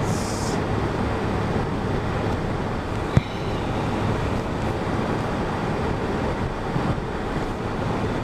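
Steady road and engine noise inside the cab of a moving truck, with a single sharp click about three seconds in.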